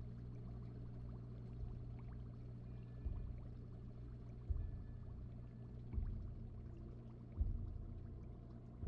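Aquarium filter running with a steady low hum, and a watery gurgle that swells about every second and a half.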